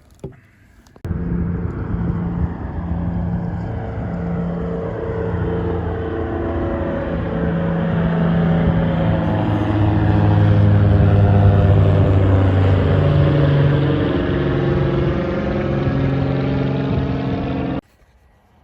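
Motor vehicle engine running, growing louder towards the middle and easing slightly after; it starts and stops abruptly.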